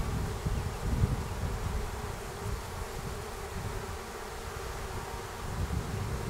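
Swarm of honey bees buzzing steadily around the hive, an even hum with a low rumble that is strongest in the first second or so.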